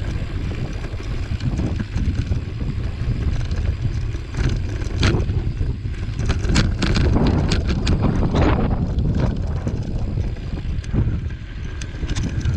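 Mountain bike riding over a dirt trail: wind buffeting the microphone with tyre noise on the dirt, and scattered clicks and rattles from the bike over rough ground, busiest in the middle.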